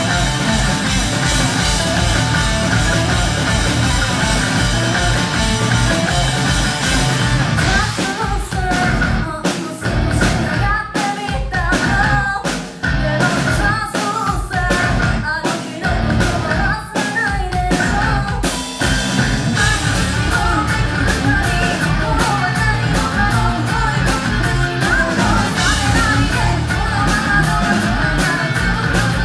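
Hard rock band playing live: distorted electric guitars, bass and drum kit under a female lead vocal. Midway the band breaks into short stop-start hits with gaps between them, then comes back in full.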